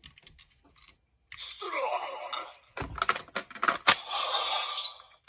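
Plastic clicks from the Kamen Rider Zero-One DX Shot Riser toy being handled, one sharp click near the middle, between short electronic sound effects from its speaker, one of them a falling sweep.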